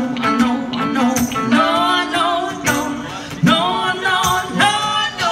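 Live band music: strummed acoustic and electric guitars, with held wordless sung notes coming in about one and a half seconds in.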